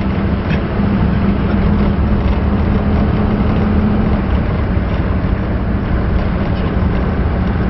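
Diesel pickup truck driving, heard from inside the cab: steady engine and road noise with a low drone that eases about four seconds in.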